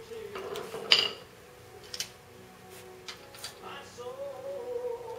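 Sharp metal clank about a second in, then a few lighter clinks, from the half shaft and front wheel hub of a Volvo V70 as they are pushed and worked by hand to seat the shaft in the hub splines. A steady tune plays behind.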